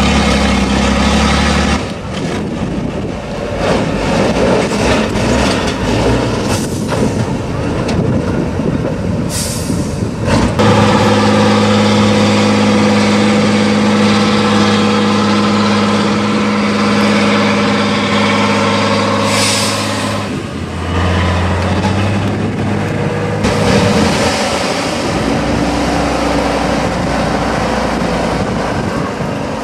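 Tatra 813 8x8 truck's diesel engine labouring hard under load as it crawls up a steep slope. It holds a steady, heavy note for about ten seconds in the middle, then shifts pitch. Two short hisses of released air come about ten seconds apart.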